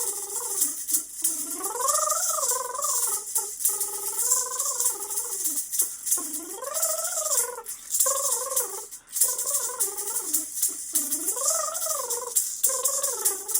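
A woman's voice singing wordless tones that slide up and down in long arching glides, over a steady shaken rattle like a maraca.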